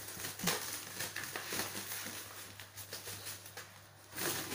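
Clear plastic film wrapped around a cardboard box crinkling and rustling under a person's hands, in short irregular crackles.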